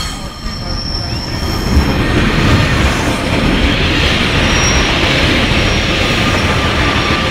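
Class 144 Pacer diesel multiple unit passing close by, the din of its engines and wheels on the rails building over the first two seconds and then staying loud.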